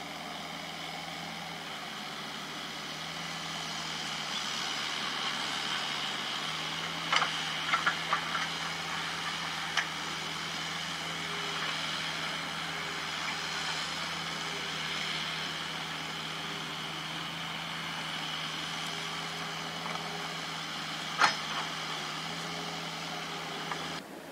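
Diesel engines of a JCB JS205 crawler excavator and a Komatsu mini excavator running steadily as they dig, with a few sharp knocks about a third of the way in and one more near the end.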